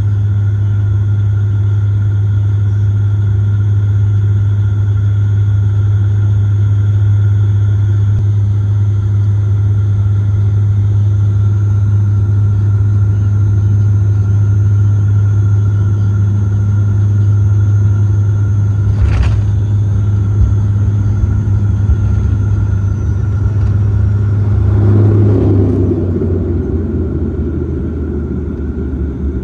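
De Havilland Dash 8 turboprop propellers and engines heard from inside the cabin, a loud steady low drone. About two-thirds of the way in comes a single sharp knock, the aircraft touching down; a few seconds later the engine noise swells into a louder rumble, then eases off.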